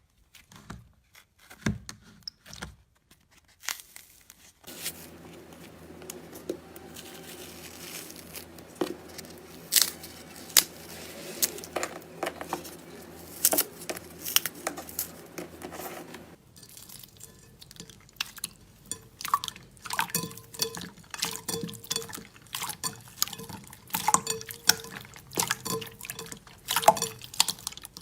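Slime being squeezed, stretched and poked: a run of wet, sticky clicks, pops and squelches, over three clips that change about five seconds in and again past the middle.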